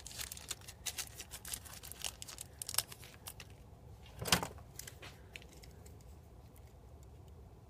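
Crinkling of paper and plastic packaging with small light metal clicks as a wire wrist-pin retaining clip is handled, one louder brief rustle about four seconds in, then little but faint background from about five seconds on.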